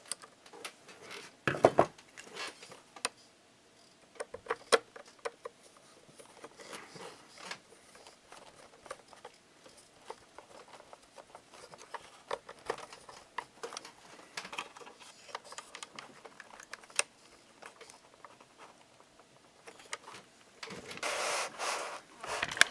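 Small clicks and scrapes of a screwdriver tightening the small screws that mount a steel gearbox into a metal RC tank chassis, with hands handling the parts. A longer, louder rubbing noise near the end.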